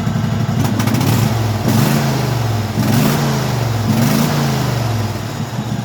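Craftsman hydrostatic lawn tractor's V-twin engine running, revved up and back down several times from a steady idle.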